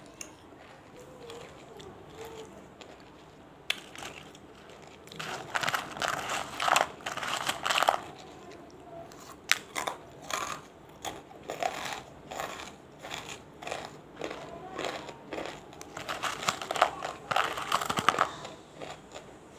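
Banslochan (tabasheer) pieces being bitten and chewed close to the microphone, with sharp crunches and crackles. The crunching starts about four seconds in, comes in dense runs, and in the middle stretch slows to single crunches about two a second.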